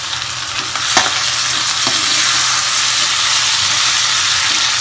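Shrimp sizzling steadily as they sauté in oil in a pan with onions and tomato, stirred with a spoon; a sharp knock of the spoon on the pan about a second in, after which the sizzle grows a little louder.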